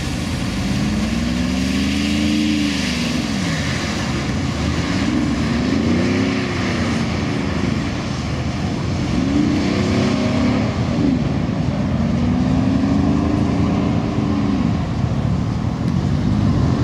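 Mercedes G-Class AMG V8 engine revved up and down over and over as the SUV drifts, about six rises and falls of pitch, each lasting a couple of seconds. Under it runs a steady hiss of tyres through water on the wet surface.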